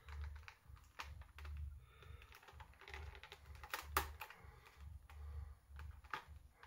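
Scissors snipping at twist ties on a clear plastic packaging tray, with the tray being handled: faint, irregular clicks and crackles.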